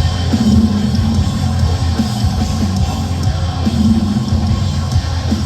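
Live heavy metal band playing an instrumental stretch: drums, bass and guitars, loud, with a held riff note that comes back about every three and a half seconds.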